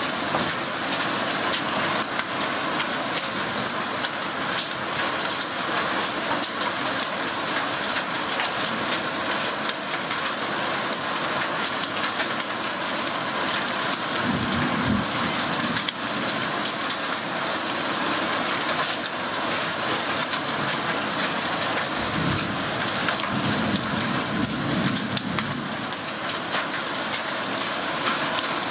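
Storm downpour of rain and hail pelting down steadily, a dense hiss of countless small impacts on surfaces. A low rumble comes through briefly around the middle and again near the end.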